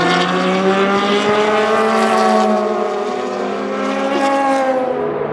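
Racing car engines at high revs on track, more than one engine note overlapping; the pitch climbs gently for about two seconds, then slowly falls as the cars run past.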